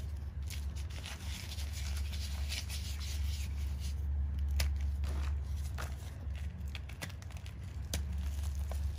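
Chalk blocks being crushed and crumbled by hand in loose chalk powder: dry crunching and crackling with a few sharp snaps, over a steady low hum.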